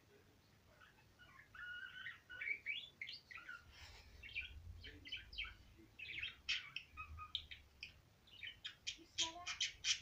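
Female budgerigar warbling: a fast, rambling chatter of short chirps, whistled notes and clicks, starting about a second in and turning into quick sharp chirps near the end.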